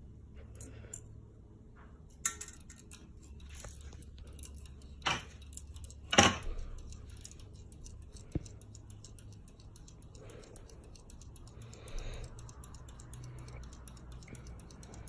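42-inch Casablanca Lady Delta ceiling fan running on low speed: a faint steady hum, with a few sharp clicks and light ticking scattered through.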